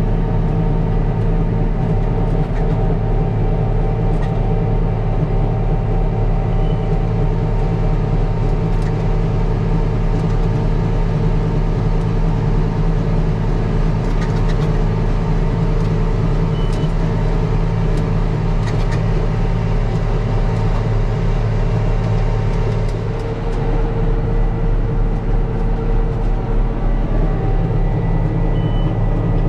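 Case IH 7120 tractor's six-cylinder diesel engine running steadily, with a brief dip in level about 23 seconds in.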